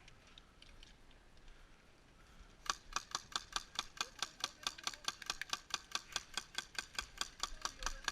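Rapid, evenly spaced sharp clicks from airsoft gear, about six a second, starting about a third of the way in and keeping on steadily.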